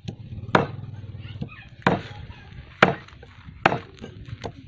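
A cleaver chops through skinned snake meat into a wooden chopping block, about six cuts at roughly one a second, some harder than others.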